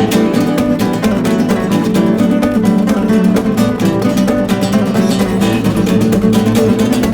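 Background music: a strummed acoustic guitar with many quick plucked and strummed notes.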